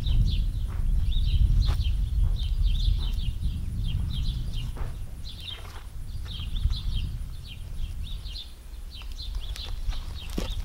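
Small birds chirping over and over in short calls, over a steady low rumble, with a few faint clicks.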